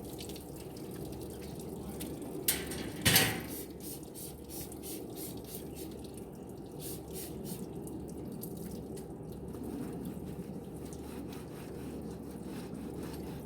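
Water dripping and trickling while a gas barbecue grill's parts are cleaned, with two sharp metal clanks about three seconds in and a run of light ticks after.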